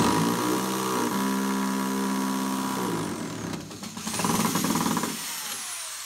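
Corded electric drill driving a screw through a metal bracket into a wooden board: the motor runs under load for about three seconds, its pitch dropping as it starts to bite, then stops, followed by a second shorter run about four seconds in.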